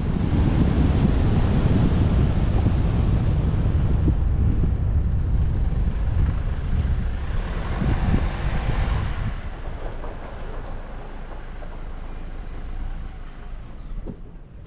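A vehicle driving: a loud, steady low rumble of engine and road noise. It eases somewhat about ten seconds in.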